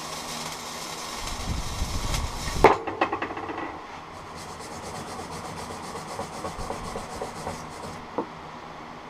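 Electric arc welding crackling and hissing in two runs, the first ending with a single sharp knock about a third of the way in, the second lasting about four seconds.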